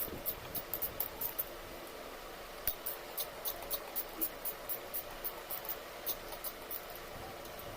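Light, irregular high-pitched clicks and scratches, a few a second, from hands working on a small air-cooler fan motor during disassembly.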